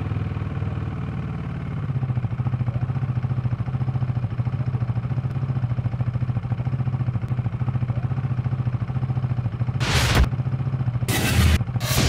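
KTM RC sportbike's single-cylinder engine idling with a steady, even low pulse, then two short loud bursts near the end.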